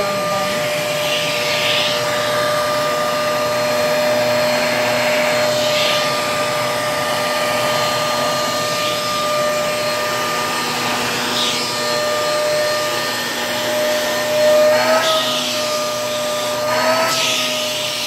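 Vacuum cleaner running steadily, with a brush nozzle on its hose drawn through a cat's fur. Its steady whine wavers briefly twice near the end.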